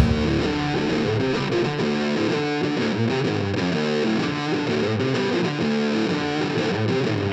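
Background music: a guitar playing a quick line of plucked notes.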